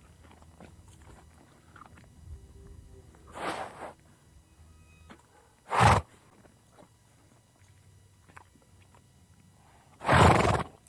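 Cartoon creature sound effects for the Ivyceros: three short noisy bursts without a clear pitch, the second and third the loudest, with faint soft clicks and shuffles between them.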